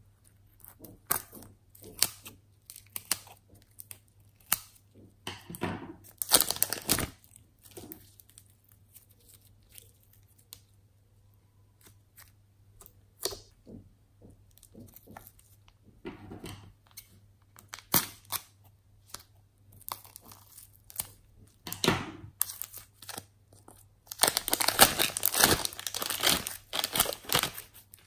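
Glitter slime squeezed from a piping bag and worked by hand, making sticky crackling and popping with scattered clicks. A dense run of crackling comes near the end as the hands start kneading it.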